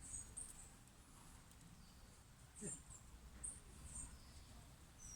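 Faint, high-pitched bird chirps, short and scattered, over a near-silent background.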